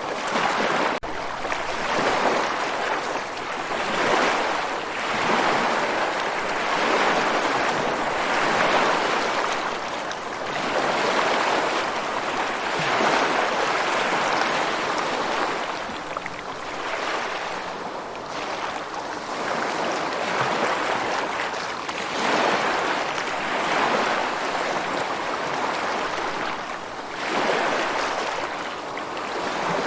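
Ocean surf: waves breaking and washing in one after another, the rush of water swelling and fading every few seconds.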